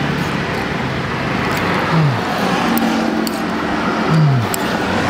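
Steady road traffic noise from cars on a nearby street, with two short low hums falling in pitch about two and four seconds in.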